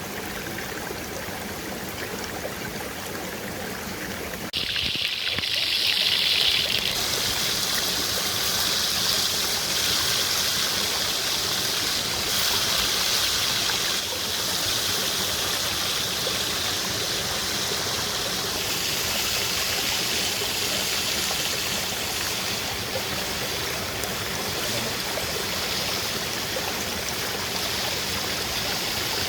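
Steady rush of a flowing stream, an even hiss of running water; about four and a half seconds in it abruptly becomes louder and brighter, then runs on evenly.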